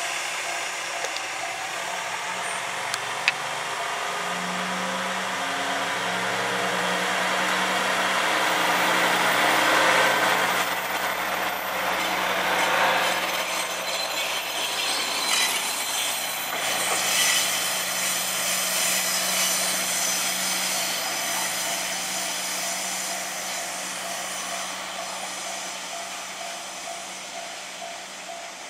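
A single-car KiHa 120 diesel railcar pulling away, its diesel engine rising in pitch as it accelerates. The wheels and engine grow loudest about ten seconds in, then fade slowly as it draws off into the distance.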